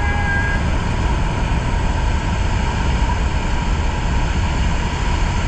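Steady rush of wind and engine noise through the open door of a jump plane in flight.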